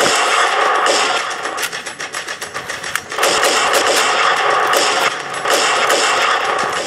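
Rapid movie gunfire sound effects, fired in about three long bursts with sparser shots between them.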